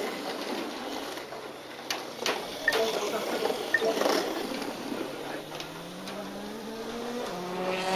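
Tiny electric motors of 1/32-scale Kyosho dNaNo RC cars whirring on the track, with scattered clicks and rattles. A motor whine rises in pitch over the last few seconds.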